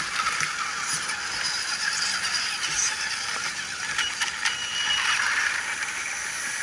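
Scale RC crawler trucks driving over dry leaf litter: electric drivetrains running with mechanical rattling and clatter, and a few sharp clicks about four seconds in.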